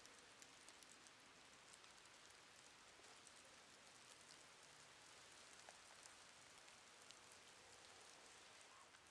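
Near silence: a faint steady hiss with scattered tiny clicks.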